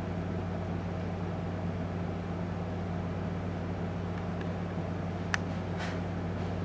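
Steady low hum over even hiss, with one sharp click about five seconds in.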